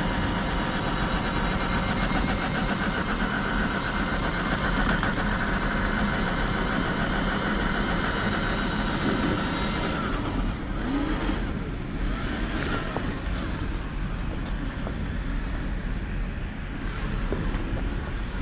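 Traxxas TRX-4 RC crawler's electric motor and geared drivetrain whining steadily as it drives, giving way to a noisier rush about ten seconds in.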